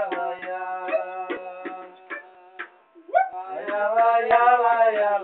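Music with a man singing. It drops away briefly past the middle, then a rising note leads back into sustained singing.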